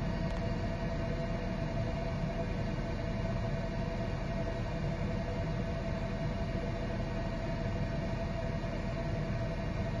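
Steady electrical hum over an even whooshing noise, unchanging throughout, from running electrical equipment.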